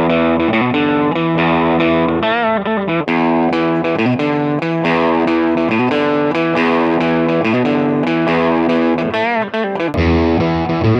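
Electric guitar played through a Fender 15-watt tube combo amp, with a gritty, overdriven tone, sustained chords and bent notes with vibrato. The tone changes abruptly about three seconds in and again near the end, as the recording switches between amps.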